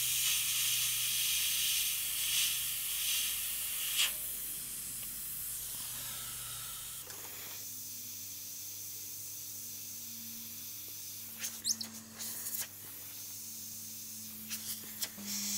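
Airbrush spraying paint in uneven hissing spurts. About seven seconds in, the hiss drops away to a low steady hum with a few light clicks.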